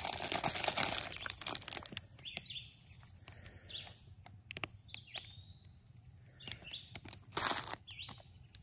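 Crinkly rustling for about the first second, then scattered short bird chirps and calls, with another brief rustle near the end.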